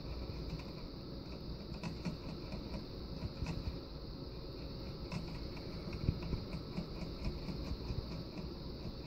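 Faint, irregular ticks of a Syrian hamster licking at the sipper tube of a water bottle, over a steady low hum.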